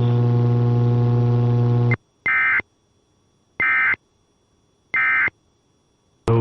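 A steady electrical hum cuts off about two seconds in. Three short raspy bursts of EAS digital data tones follow, about a second apart, then a sharp click near the end.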